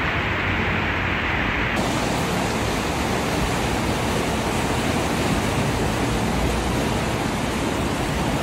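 Steady rushing noise that changes abruptly in tone about two seconds in.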